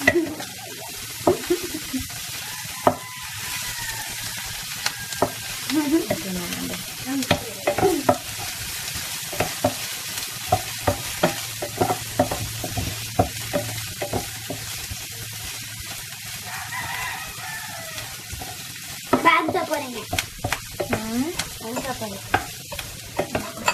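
Chopped onion sizzling in a nonstick frying pan while a wooden spatula stirs it, scraping and knocking against the pan many times over a steady frying hiss.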